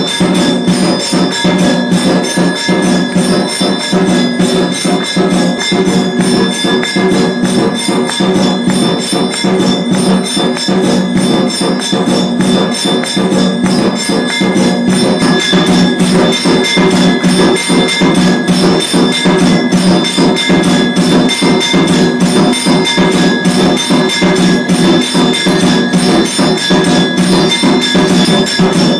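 Hindu temple aarti ringing: bells and percussion struck in a fast, continuous rhythm, with steady ringing bell tones over it.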